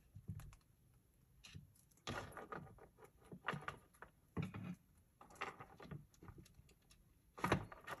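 Light, irregular clicks and taps of metal jewelry pliers handling small metal jump rings, with faint clinks of the rings.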